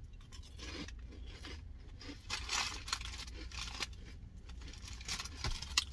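Crinkling and tearing of fast-food packaging being handled, in a few soft stretches with a short click near the end, over a low steady hum.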